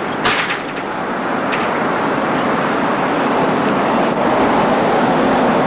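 Steady street traffic noise, with a sharp click about a quarter of a second in and a fainter one about a second and a half in.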